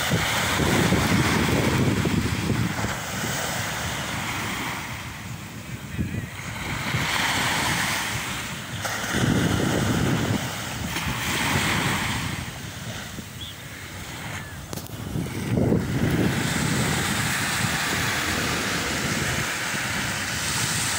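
Small waves washing up on a sandy beach, the hiss of the surf swelling and fading every few seconds, with gusts of wind buffeting the microphone.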